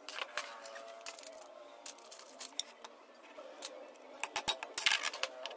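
Background music, with light metal clicks and taps from a steel rod knocking against an angle grinder's bevel gear held in a vise: a couple near the start and a quick cluster of them near the end.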